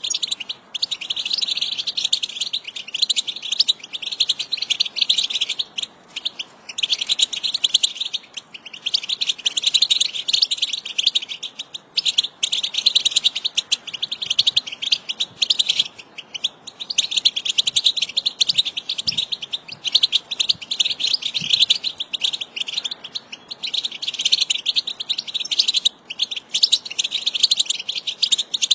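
A flock of European goldfinches twittering: dense, rapid chattering calls in stretches of a few seconds, broken by brief pauses.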